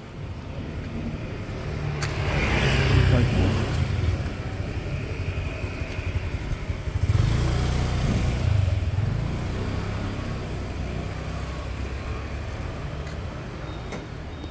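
Street traffic: motor vehicles passing close by, their engines swelling louder about two seconds in and again about seven seconds in over a steady hum.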